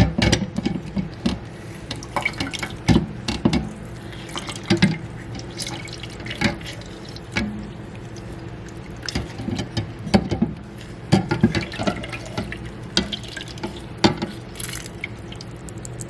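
A lime squeezed by hand, its juice dripping and splashing into a glass of warm turmeric water. Many small irregular drips and knocks.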